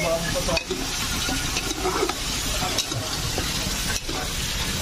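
Pork frying in hot oil with garlic and onion, sizzling steadily as it is stirred in the pan, with a few short scrapes of the utensil.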